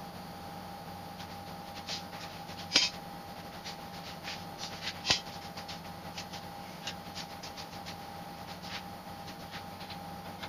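Scattered light clicks and taps from hands and hardware at a car-body rotisserie, with two sharper knocks about three and five seconds in, over a steady hum.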